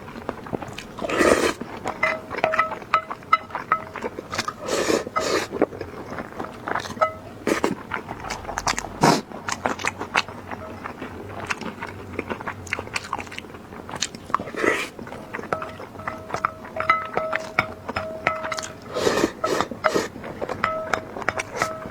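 Close-miked eating: a person chewing and biting food, heard as many short, sharp mouth clicks at irregular intervals, with background music under it.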